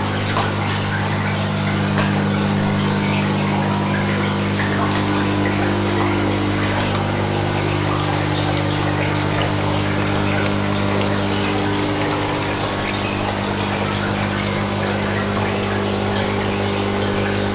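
Steady hum of aquarium pumps with water bubbling and trickling in the tanks.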